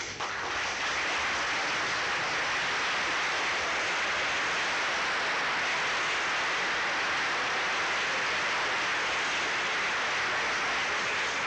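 Studio audience applauding steadily, starting suddenly as the contestant is welcomed and easing off near the end.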